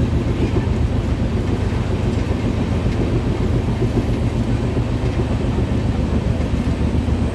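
Passenger train coach running on the track: a steady, dense low rumble heard from inside the crowded carriage.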